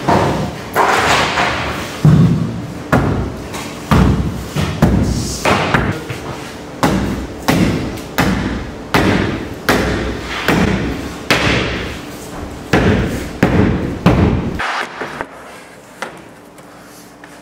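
Mallet blows knocking a length of wooden chair rail moulding tight against the wall, a steady run of thumps about two a second that stops near the end.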